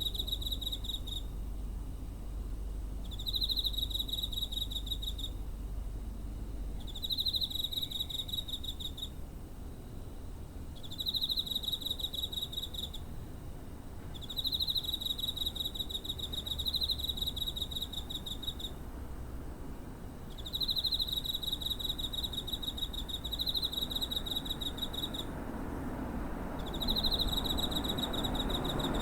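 Cricket singing: repeated trills of rapid pulses at a high, clear pitch, each lasting one to three seconds with short pauses between. A low rushing noise swells near the end.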